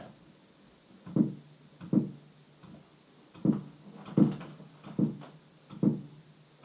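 A series of about seven dull knocks, irregularly spaced roughly a second apart, each followed by a short low ring.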